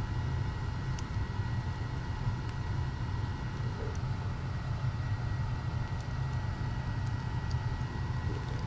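Steady low background hum and rumble with a faint steady whine above it, and a few faint ticks of the flashlight's small parts being handled.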